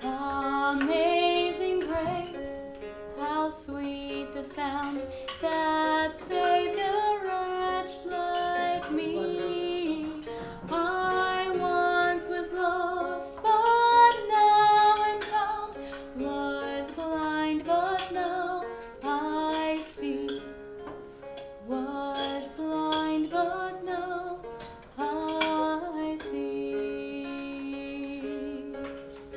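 Music: a song sung over a plucked-string accompaniment, with the sung notes gliding and wavering in pitch.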